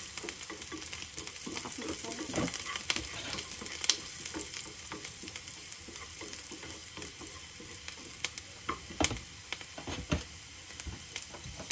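Sliced onions sizzling steadily in a hot oiled nonstick frying pan, stirred with a wooden spatula that scrapes and knocks against the pan now and then, with a few sharper knocks in the last few seconds.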